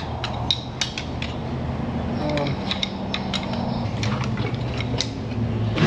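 Hand wrench clicking and clinking against metal in short, irregular strokes while fittings are worked loose on an engine's turbo lines, over a steady low hum.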